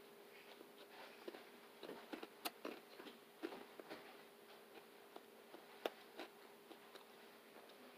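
Faint, irregular clicks and crackles of a person chewing a Cheetos-topped burger and handling its paper wrapper, densest a couple of seconds in, over a faint steady hum.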